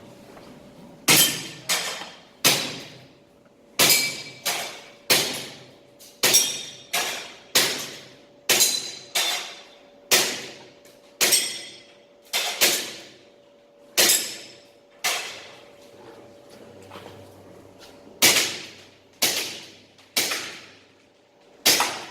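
A string of about two dozen airsoft pistol shots fired in quick succession, each a sharp crack that rings out briefly. There is a pause of about three seconds near two-thirds of the way through, then a final burst of shots.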